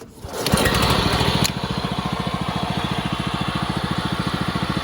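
Exmark Metro walk-behind mower's engine starting up and running. About a second and a half in it drops to a steadier, lower run with an even, rapid firing beat.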